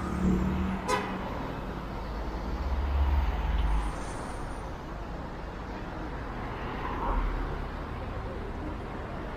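City street traffic: motor vehicles passing with a low engine rumble that swells about three seconds in, and one sharp click about a second in.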